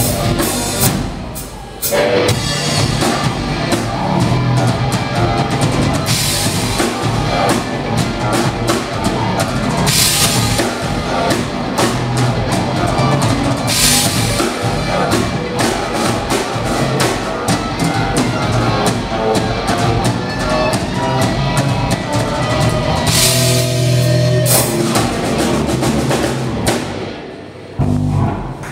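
Live rock band playing an instrumental passage on electric guitars and drum kit, with cymbal crashes and a steady bass drum. The music drops out briefly about two seconds in and again just before the end, then comes back in.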